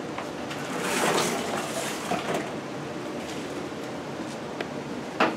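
A commercial dishwasher being tipped and shifted by hand: a rustling scrape swells about a second in and fades, then a sharp click near the end.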